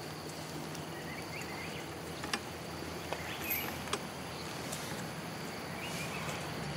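Tropical forest ambience: steady insect buzz with a few short bird chirps, and three sharp clicks around the middle.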